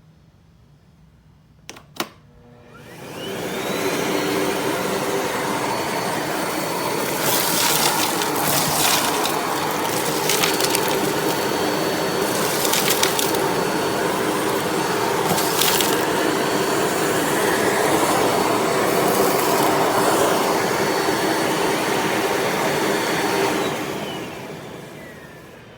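Miele Blizzard CX1 bagless canister vacuum switched on with a click about two seconds in. Its motor whine rises as it spins up, it runs steadily with a few brief crackles, and it winds down with a falling whine near the end.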